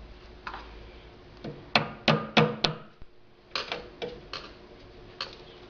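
Sharp knocks and clicks of flat-pack table fittings being handled and pressed into place: a quick run of four loud knocks about two seconds in, with several lighter taps before and after.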